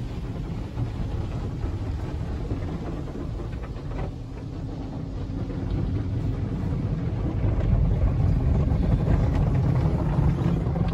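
Belanger tunnel car wash heard from inside a car: a steady low rumble of wash water and machinery with a faint hum, getting louder about seven or eight seconds in.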